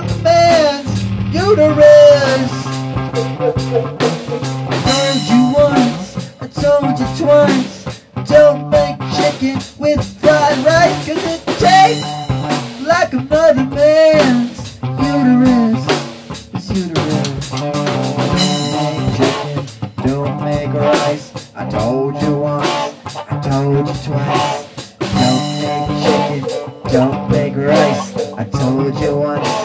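Rock band jamming: guitar playing wavering, bent lead notes over a bass line and a drum kit keeping a steady beat.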